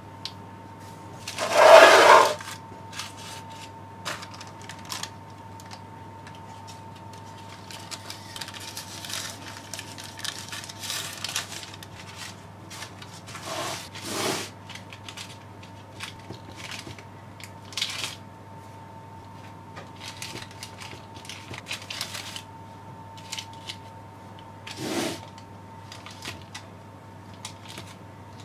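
Handling noises of shortcrust pastry being laid and pressed into a parchment-lined tart tin and its edge pinched off: scattered soft taps, scrapes and baking-paper rustles, with one louder rustle about two seconds in. A faint steady hum runs underneath.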